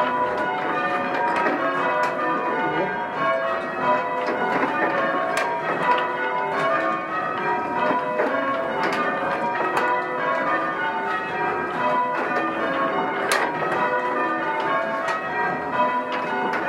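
A ring of six church bells of mixed founders being change-rung, the bells striking one after another in a rapid, continuous succession, their ringing tones overlapping.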